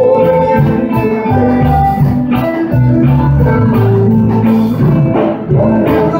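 Live rock band playing: guitars over a drum kit keeping a steady beat with regular cymbal strokes.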